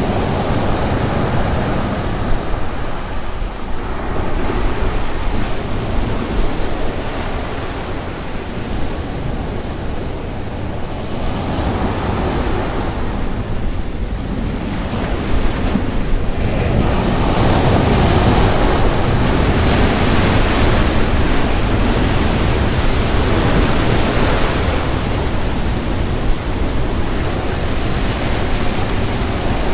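Sea waves breaking on the beach, a steady rushing wash that swells and eases every few seconds.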